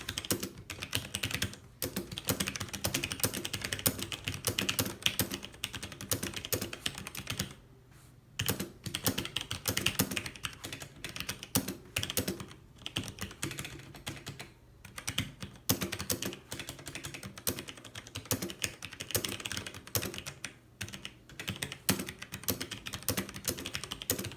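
Steady fast typing on a Logitech G613 wireless mechanical keyboard with Romer-G key switches, a dense run of key clicks broken by a few short pauses, the longest about eight seconds in.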